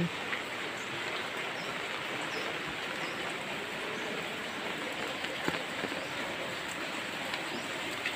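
Steady rain falling, an even hiss with a few faint taps.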